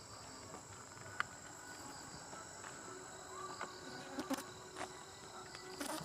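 Night insect chorus, a steady high-pitched trill of crickets, with a few faint sharp clicks about a second in and again around four seconds.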